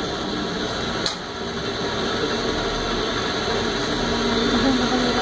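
Lookout Mountain Incline Railway car running along its rails as it moves away, a steady mechanical noise with a single sharp click about a second in.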